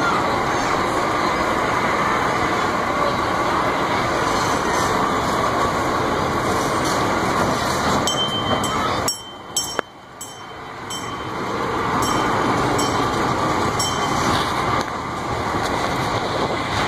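Kiddie boat ride running with a steady mechanical rumble. The rumble drops out about nine seconds in and builds back up over the next two seconds, and a series of light, evenly spaced ticks runs through the middle of it.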